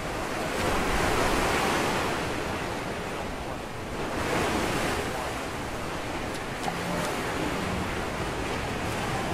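Ocean surf washing onto a rocky shoreline, a steady rush that swells twice, about a second in and again about four seconds in, as waves come in.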